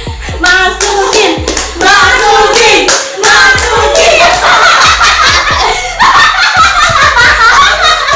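Several people clapping their hands together, mixed with voices and background music with a steady beat.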